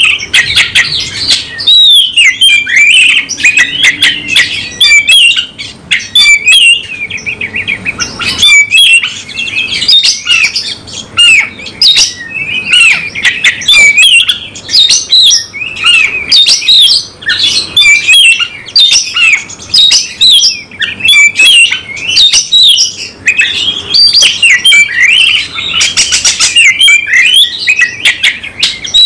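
Oriental magpie-robin singing loudly and almost without pause: a fast, varied stream of whistled phrases, chirps and clicking notes. It is the full, aggressive song of a male kacer worked up to fight.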